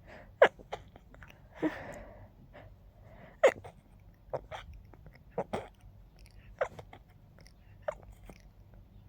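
Stifled sneezes held in with fingers at the nose: a run of short, sharp, muffled bursts, the loudest about half a second and three and a half seconds in, with a short breathy rush just before two seconds.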